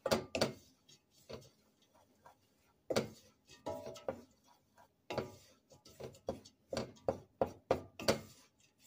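A utensil scraping and knocking against a stainless steel pot while stirring flour browning in oil, in irregular strokes, some with a short metallic ring, coming quicker after about five seconds.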